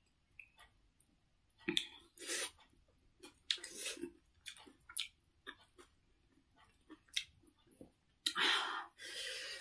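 Close-miked mouth sounds of a person eating: wet chewing and small lip-smacking clicks, with a few louder breathy bursts, the loudest two near the end, as she draws air against the chilli heat of the achar.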